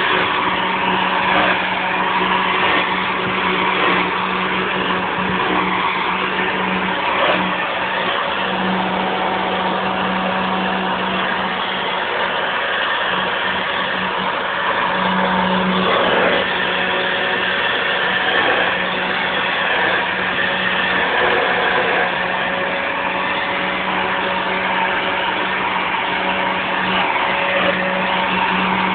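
1976 Hoover upright convertible vacuum cleaner running steadily, its motor humming under the rush of suction, with slight shifts in tone as it is worked over the floor. The beater roller is not turning because its drive belt has broken.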